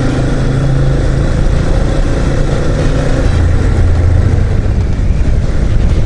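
Yamaha Serow 250's air-cooled single-cylinder engine running at a steady cruise under wind and road noise. Its note drops lower about halfway through.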